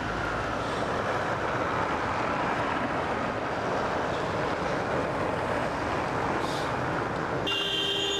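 Street traffic with a Lisbon four-wheel electric tram rolling across a cobbled square, heard as a steady rumble and hiss. A high, ringing squeal starts suddenly near the end.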